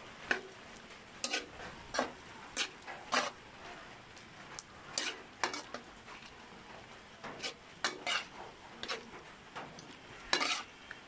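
A spatula scraping and stirring squid, onions and chili around a wok in irregular strokes, about one or two a second, over a low steady sizzle of sautéing.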